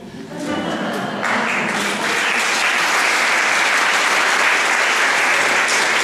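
Audience applauding. The clapping comes in strongly about a second in and then holds steady.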